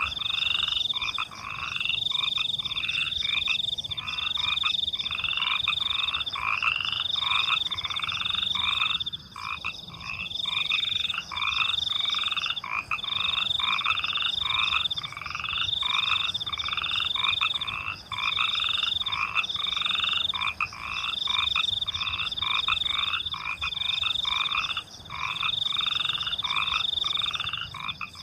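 Frogs croaking in a steady run of repeated calls, about one or two a second, over the continuous high trill of crickets.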